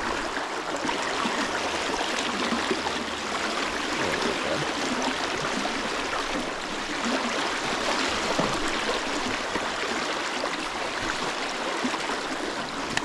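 Fast river current rushing and splashing through the shallows along the bank, a steady hiss of water.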